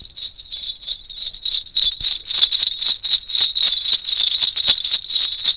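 A string of horse bells tied on a rope, shaken in a steady rhythm of several jingles a second, to give the foley sound of a horse's harness bells.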